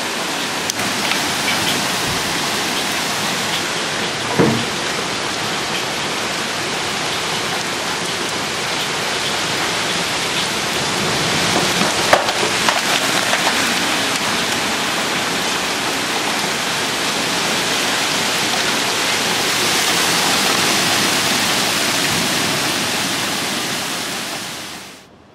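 Hailstorm: hailstones and heavy rain pelting down in a dense, steady hiss, with a few sharper knocks of stones striking about four seconds in and again around twelve seconds in. The sound drops away sharply near the end.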